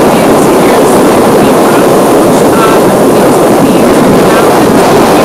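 Loud, steady wind buffeting the microphone, a dense rumble that nearly buries a woman's voice talking underneath.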